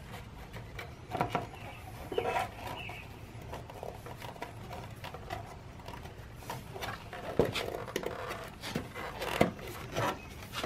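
Plastic side cover of a Kawasaki Vulcan 900 being handled and pressed onto the motorcycle frame: scattered light clicks and knocks of plastic against the frame, with a few sharper knocks in the second half as its pegs are pushed into the rubber grommets.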